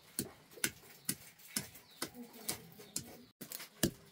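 Knife chopping on a cutting board: sharp, evenly spaced strokes about two a second.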